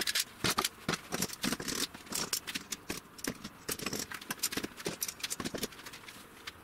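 Light, irregular clicking and clattering of small metal parts being handled, several knocks a second.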